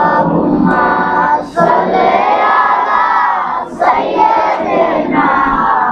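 Several voices singing a Bengali Islamic devotional song together, in long held phrases with short breaks between them.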